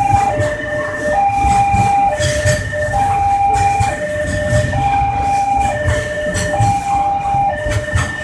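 Loaded container freight wagons rolling past on the rails with a steady low rumble. Over it, an electronic two-tone warning signal alternates between a higher and a lower pitch, one full cycle about every second and a half.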